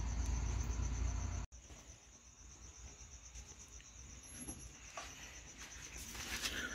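Insects chirping steadily, a high pulsing trill. A low hum beneath it cuts off about a second and a half in, and a few faint knocks come near the end.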